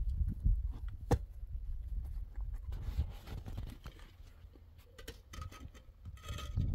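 Hollow concrete blocks knocking and scraping as they are lifted and stacked by hand, with one sharp knock about a second in and smaller clicks later, over a steady low rumble.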